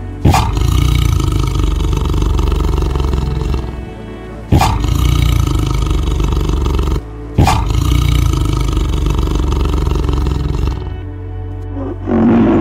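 Tiger roars: three long roars in a row, each starting suddenly, over background music, then a short lower call near the end.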